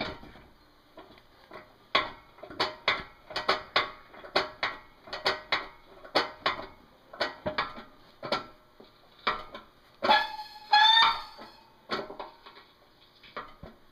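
The two-stage piston hand pump of a hydraulic shop press is being worked. Its pump valve gives a run of short squeaks, two or three a second, then about ten seconds in a longer squeal in two parts, rising slightly in pitch. The press is building pressure on the hub bearing assembly.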